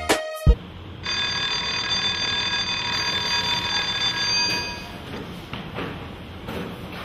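Electric school bell ringing steadily for about four seconds, starting about a second in, signalling the end of class. After it stops come faint knocks and rustling of books being gathered.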